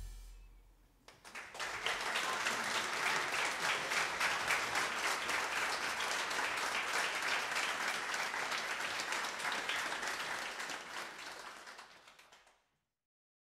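Audience applauding at the end of a live jazz band performance. The last notes die away first, the applause begins about a second and a half in, and it fades out shortly before the end.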